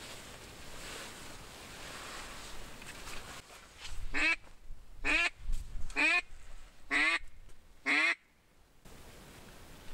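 Five loud duck quacks in a row, about one a second, starting about four seconds in, after a few seconds of steady rushing noise.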